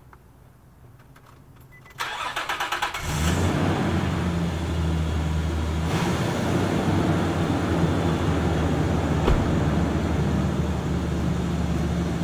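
2002 Infiniti QX4's 3.5-litre V6 being started: the starter cranks for about a second, the engine catches about three seconds in and settles into a steady idle, heard from the exhaust at the rear of the truck.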